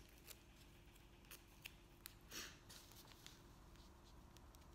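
Faint handling sounds of masking tape being torn and pressed onto a cotton tote bag: a few light ticks and one short scratchy tear about halfway through.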